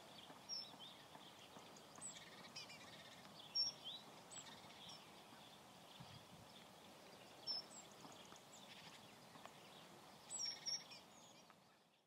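Faint outdoor ambience of small birds chirping: short, high calls every second or two over a soft hiss, fading out near the end.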